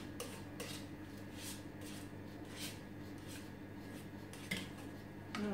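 A spatula scraping down the inside of the ThermoCook's stainless steel mixing bowl: a series of faint, short scrapes at irregular intervals, over a steady low hum.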